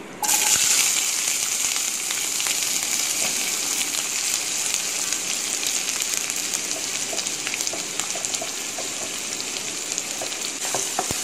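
Chopped onions dropped into hot oil in a pan and sizzling: the sizzle starts suddenly, is loudest at first, then eases slightly and holds steady, with a few light clicks near the end.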